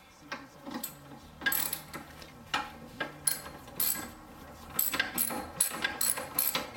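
Ratchet wrench on socket extensions clicking as it backs out a lower control arm mounting bolt, in short strokes that come quicker near the end.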